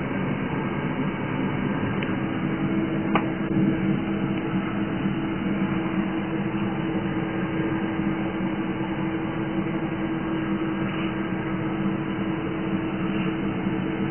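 Steady machine hum with a constant low drone and hiss, with one sharp click about three seconds in.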